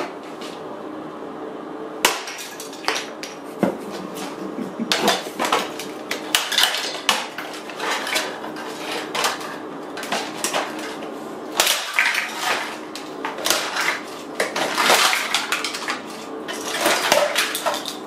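A plastic vacuum cleaner body being broken apart: a string of cracks, snaps, knocks and rattles as the casing is hammered and wrenched apart by hand and loose pieces clatter on a concrete floor.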